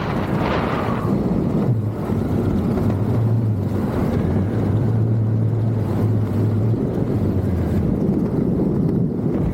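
Wind rushing and buffeting over the microphone during a skydive, with a low steady hum for several seconds in the middle.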